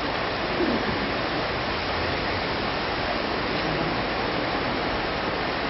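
Steady rushing noise, with faint voices of a group talking in the background.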